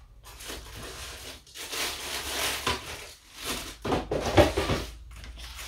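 Paper, cardboard and thin string being handled: rustling and rubbing in two spells, the second a little louder.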